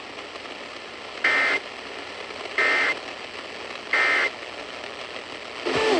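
Emergency Alert System end-of-message signal: three short bursts of digital data tones, evenly spaced about a second and a third apart, over faint broadcast hiss. Music starts up just before the end.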